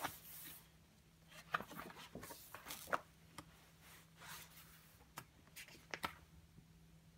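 Pages of a wallpaper sample book, vinyl on a non-woven backing, being turned and brushed by hand: scattered soft rustles, swishes and light taps at irregular times.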